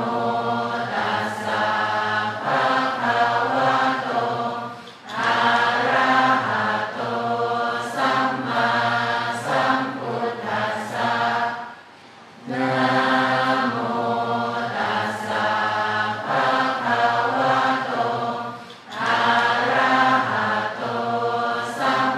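Thai Buddhist chant sung in unison by many voices: a melodic mantra phrase repeated over and over, with a short pause for breath about every seven seconds.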